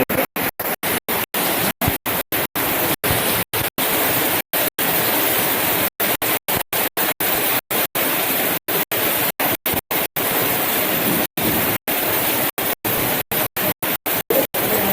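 Heavy rain with hail coming down in a steady, loud hiss, cut by many brief dropouts where the sound goes silent.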